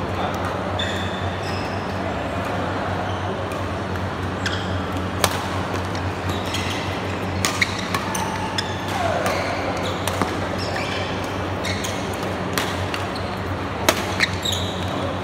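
Badminton doubles rally: sharp cracks of rackets striking the shuttlecock every second or two, with shoes squeaking on the court mat. A steady low hum runs underneath.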